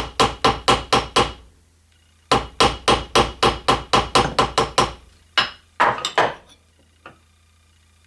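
Ball-peen hammer tapping a rivet pin in rapid, even light strikes, about five a second, in two runs with a short pause between, then a few slower strikes. The peening spreads the pin's metal into the chamfer to make a flush rivet.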